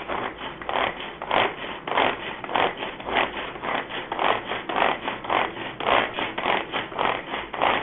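Pull-string manual mini chopper being worked: the cord drawn out and rewinding again and again, spinning the three stainless steel blades through tomato chunks in the plastic jar. A quick, even run of rasping strokes about three times a second.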